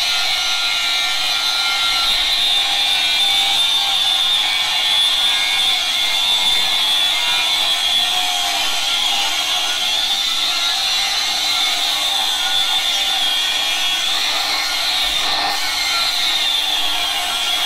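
Electric motor and belt-and-pulley flywheel drive running steadily: a high whine over a constant hiss, the whine wavering slightly in pitch.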